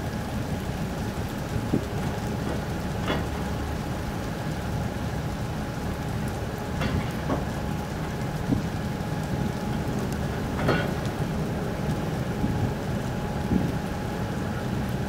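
Steady low rumble of the car ferry Okesa Maru's engines and machinery as it comes alongside to berth, with a faint steady hum over it. A few brief knocks sound about three, seven and eleven seconds in.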